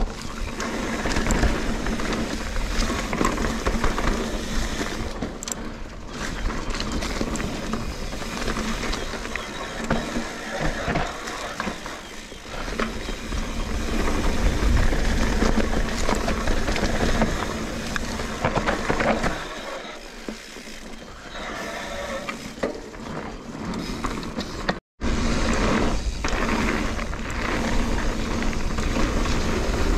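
Trek Fuel EX 8 full-suspension mountain bike being ridden along a dirt trail: tyres rolling over dirt and the chain and frame rattling over bumps, growing louder and softer with the terrain. The sound cuts out for an instant near the end.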